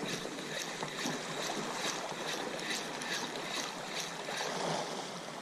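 Spinning reel being cranked on a steady lure retrieve, a rhythmic ticking about two to three times a second, over sea water washing against rocks.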